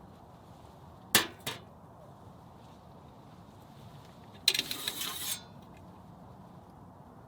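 Camp dishes and utensils being handled: two sharp clinks a little after a second in, then about a second of rattling clatter near the middle.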